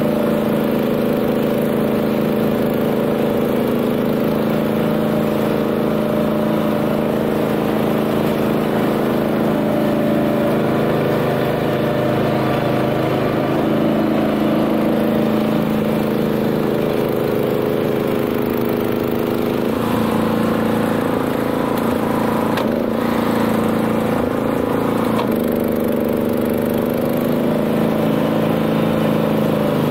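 Honda GX390 single-cylinder engine of a BCS 740 two-wheel tractor running steadily under load while driving a flail mower. A few short knocks come about two thirds of the way through.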